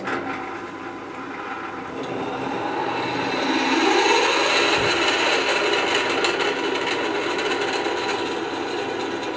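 Pillar drill running and an 8.5 mm twist bit cutting through a metal plate, enlarging a pilot hole into a clearance hole. The sound starts abruptly and grows loudest about four seconds in as the bit bites, then eases off slowly.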